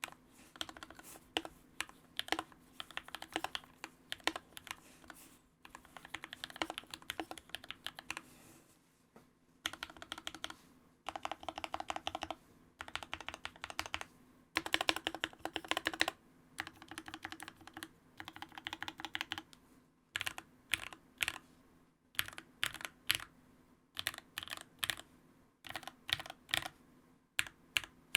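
Keychron K6 65% aluminum-frame mechanical keyboard, fitted with case foam, lubed Kinetic Lab Hippo linear switches and Hippo PBT keycaps, being typed on in quick runs of keystrokes. In the last third it changes to single, evenly spaced key presses.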